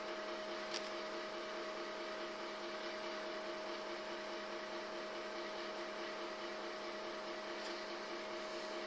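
Steady electrical hum: a constant mid-pitched tone over a low hiss, with one faint tick just under a second in.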